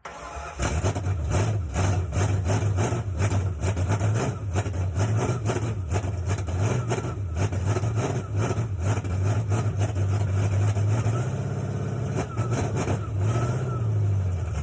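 Ford F100 project truck's engine firing up from a switch-panel starter button and running loud and rough, the revs rising and falling.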